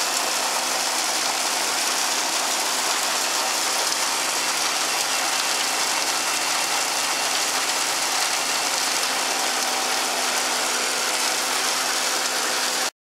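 Forage wagon unloading chopped corn silage: a steady machine drone under a constant hiss of chopped corn pouring off the discharge. It cuts off abruptly near the end.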